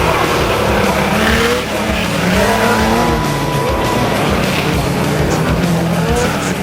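Several Chevrolet Omega stock race cars running hard, their engines revving up and down through the gears with overlapping, rising and falling pitches.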